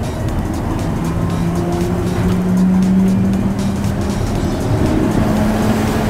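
Yokohama Seaside Line rubber-tyred automated train running on its concrete guideway: a steady rumble of the tyres, with a motor whine that rises in pitch over the first few seconds. An oncoming train comes alongside near the end.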